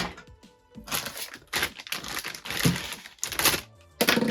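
Plastic parts bags from a radio-controlled car kit crinkling and rustling as they are handled, in several irregular bursts.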